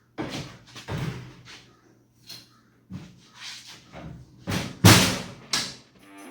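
Metal tool box being handled: a series of knocks and thumps, with the loudest slam about five seconds in.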